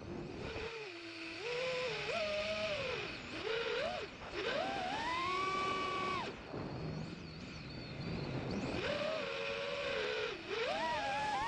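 FPV freestyle quadcopter's electric motors and propellers whining, the pitch swooping up and down sharply with each throttle punch and chop. There is a quieter, lower stretch of hum a little past the middle before it rises again near the end.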